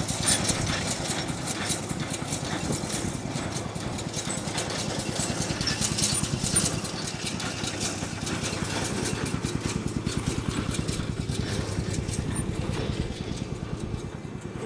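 DT-20 tractor's single-cylinder diesel running steadily with a rapid, even beat, along with the rattle of the hay loader wagon it pulls. The sound gets somewhat quieter near the end.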